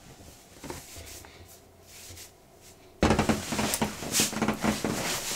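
Clothes rustling as shirts are pulled on and off, faint at first, then suddenly much louder about three seconds in, with a rapid run of rustles and knocks.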